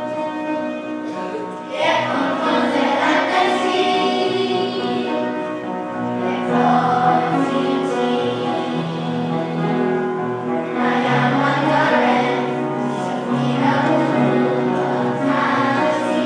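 Children's choir singing with instrumental accompaniment; the accompaniment is playing alone at first, and the voices come in about two seconds in.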